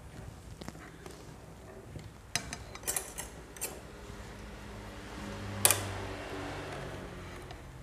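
Ceramic dishes clinking on a table as a plate of rice is set down: a few light clinks a couple of seconds in, then one louder clink about two-thirds of the way through.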